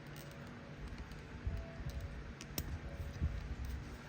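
A few light clicks and taps from handling small plastic RC car parts, over a faint low hum.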